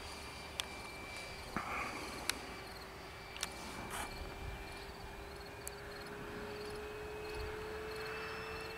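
Electric ducted fan of an RC MiG-17 jet whining steadily in flight at part throttle, heard from a distance, its pitch creeping slowly upward. A few short sharp clicks sound in the first half.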